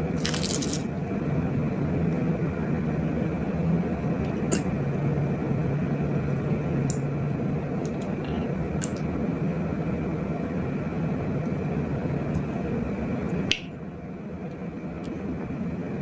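Glossy slime being handled, giving a few sharp, scattered clicks and pops over a steady low background hum; the hum drops in level after a click about three-quarters of the way through.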